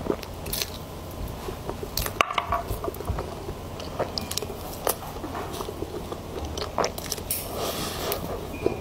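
Close-miked chewing of a mouthful of soft cream-filled sponge cake: wet, sticky mouth and lip sounds. A few sharp clicks stand out, the loudest about two seconds in.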